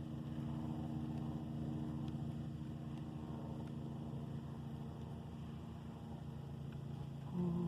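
Steady low motor hum, running evenly throughout. Near the end a short pitched voice-like call rises above it.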